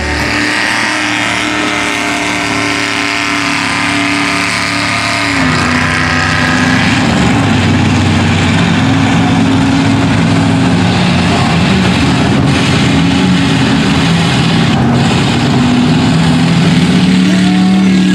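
Mud-bog pickup truck engines running hard at high revs, the engine pitch rising and falling as the throttle changes.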